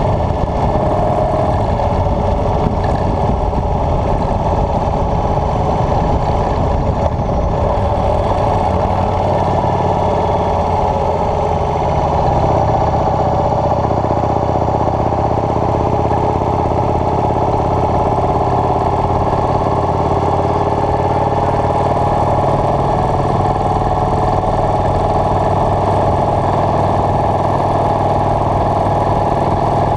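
Motorcycle engine running steadily while riding uphill, the engine note a little louder and steadier from about twelve seconds in.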